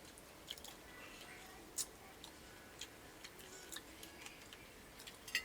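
Faint, irregular wet clicks and smacks of a person eating, about one a second, the loudest just before the end.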